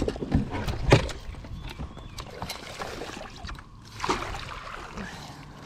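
Scattered knocks and thumps on a fiberglass bass boat as someone moves about the deck and handles gear: several sharp ones in the first second and another knock with a rustle about four seconds in.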